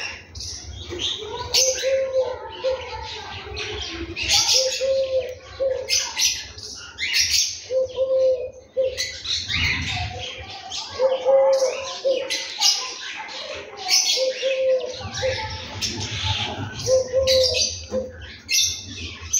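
House sparrows chirping over and over in quick, bright notes. A dove's low coo repeats every second or two, with a low rumble underneath.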